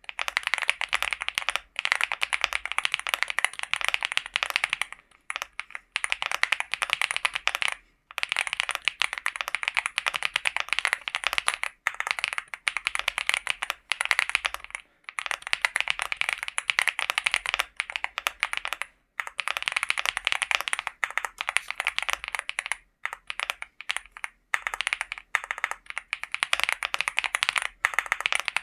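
Fast typing on a LEOBOG Hi75 mechanical keyboard fitted with Akko V3 Cream Black Pro linear switches: a dense run of key clacks, broken by short pauses every three to four seconds.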